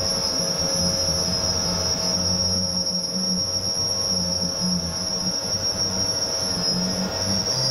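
Random orbital sander running with a steady high whine as it sands the clear coat on a car's front fender, its low hum wavering as it is pressed and moved over the panel.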